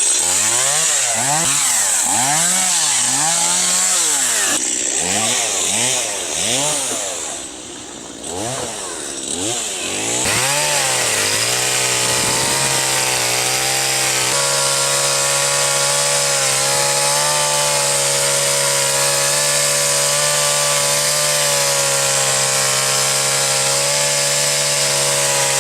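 Two-stroke chainsaw engine revved up and down again and again in quick swells, then held at a steady high speed.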